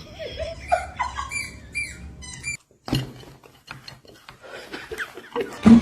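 A cat giving several short, high calls that slide up and down in pitch, then after a sudden break, scattered light taps and knocks.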